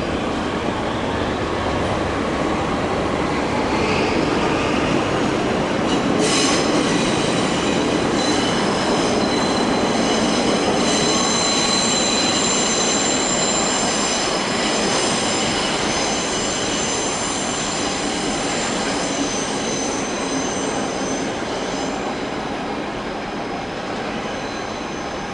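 Railcars rolling slowly on rails. From about six seconds in, the wheel flanges squeal on a curve: several high, piercing tones held over the steady rumble of the wheels.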